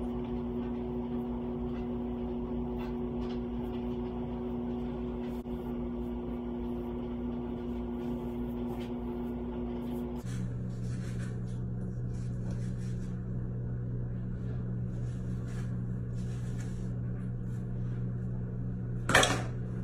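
Steady low hum from a running motor or appliance. About halfway through it drops abruptly to a lower pitch, and a brief sharp noise comes near the end.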